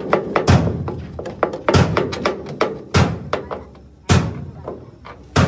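Hammer striking metal: five heavy blows about a second apart with lighter taps between them, each ringing briefly.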